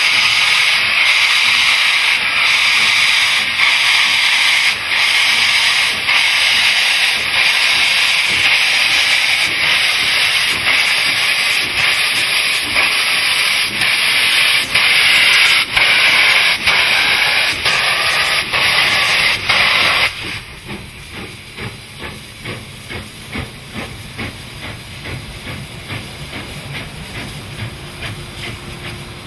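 Canadian Pacific 2816, a 4-6-4 Hudson steam locomotive, starting away with steam blasting from its cylinders: a loud steady hiss broken by regular exhaust beats that come quicker later on. About twenty seconds in the hiss stops abruptly, leaving quieter, quick exhaust beats and a low rumble.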